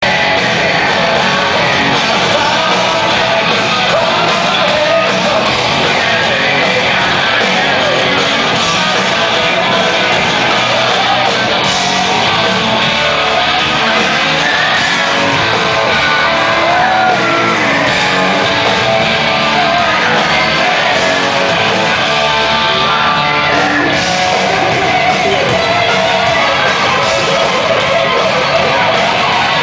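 Hard rock band playing live: loud distorted electric guitars and drums under a shouted, sung lead vocal, heard in a large hall.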